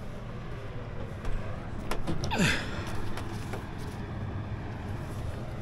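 A man's short breathy grunt with a falling pitch about two seconds in, among a few light handling clicks over a steady low background hum.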